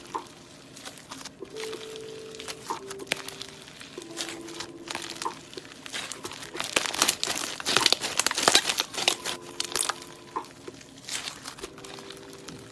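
Crunchy slime full of mixed-in cubes and beads being stretched and squeezed by hand: a dense run of crackling and popping that builds to its loudest about seven to nine seconds in, then eases off.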